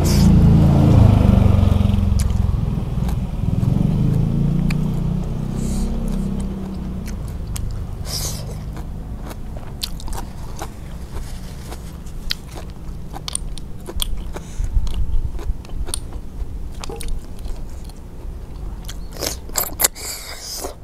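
Close-miked chewing and sucking: river snails being sucked from their shells and chewed. A loud, muffled chewing sound fills the first few seconds, then gives way to sharp slurps and clicks, bunched around eight seconds in, mid-way and near the end.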